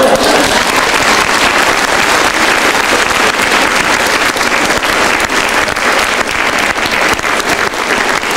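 Theatre audience applauding: dense, steady clapping.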